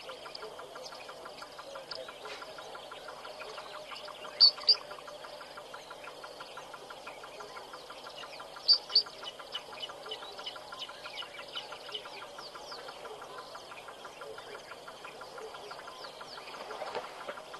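Outdoor bush ambience of birds calling, over a steady fast pulsing chorus. Two loud, sharp double calls stand out, about four and a half and nine seconds in, among many faint short chirps.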